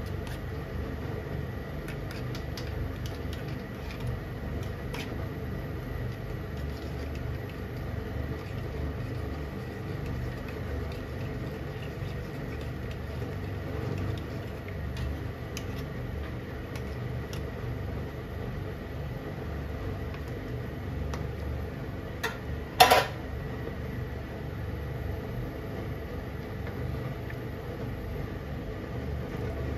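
A pan of soy-milk miso ramen simmering on the stove, a steady low bubbling, while a ladle stirs miso into the broth with light scrapes and taps against the pan. About three-quarters of the way through, the ladle knocks the pan once, sharply.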